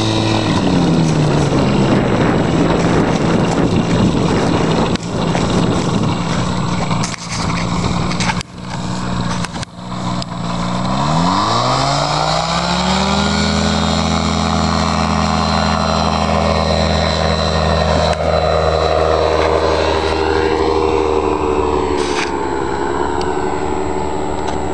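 Ultralight trike's Rotax engine driving its pusher propeller: the engine note dips near the start, then about eleven seconds in it rises steeply to full power for the takeoff run and holds a steady high drone as the trike lifts off and climbs away, easing slightly near the end.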